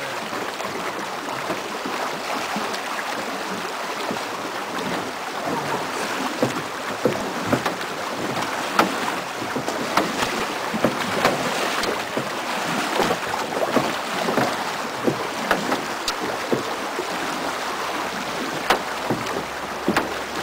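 Fast river water rushing and splashing around a rowed drift boat running through rough water, with many sharp splashes and knocks from about six seconds in.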